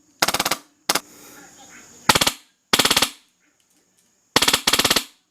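Wolverine Inferno HPA airsoft rifle firing short full-auto bursts on its medium rate setting, about six in all, each a rapid rattle of shots that stops sharply.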